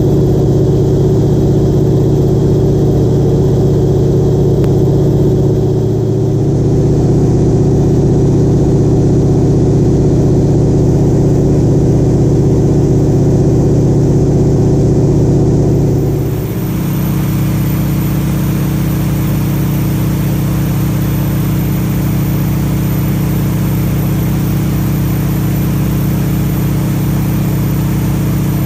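Steady drone of a Harvard trainer's Pratt & Whitney R-1340 nine-cylinder radial engine and propeller, heard from on board with air rushing past. A little over halfway through, the sound drops slightly and changes tone.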